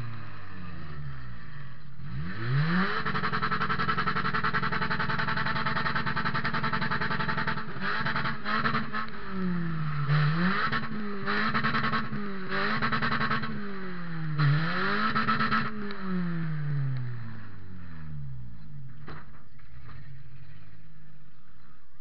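Toyota Matrix four-cylinder engine heard from inside its stripped cabin, revving hard. It climbs about two seconds in and holds high, then drops and climbs again several times before falling away and going quieter near the end.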